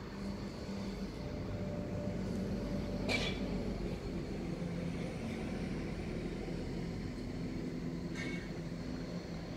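Steady low mechanical hum and rumble of running machinery, with a sharp knock about three seconds in and another near the end.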